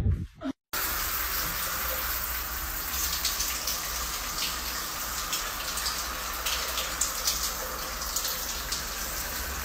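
Shower running: a steady spray of water hissing down inside a glass shower stall, starting abruptly just under a second in.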